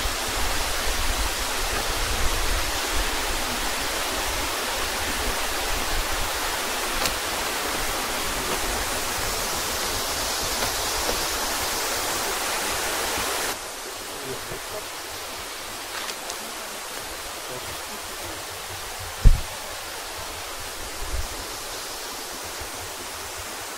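Waterfall: the steady rush of falling water. Its level drops suddenly about halfway through, and a single dull thump comes a few seconds later.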